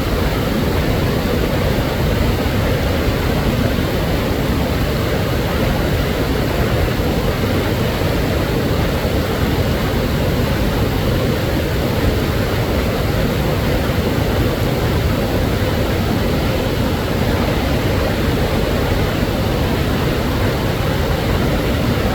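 Waterfall rushing steadily: a dense, unchanging wash of water noise, heaviest in the low range.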